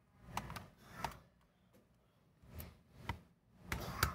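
Phillips screwdriver backing out the small screws of a laptop's plastic bottom plate, with hands handling the case: a string of short clicks and scrapes, the loudest near the end.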